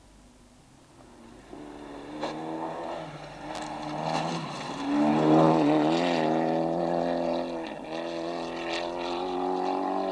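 Mitsubishi Lancer Evolution rally car on a gravel stage, its engine note growing from faint to loud as it approaches and passes about halfway through, revving hard and dipping briefly at gear changes, with a few sharp cracks.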